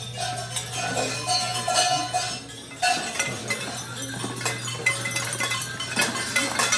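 Cowbell-type bells on a Krampus costume clanking and jangling in irregular clinks, over a steady low hum.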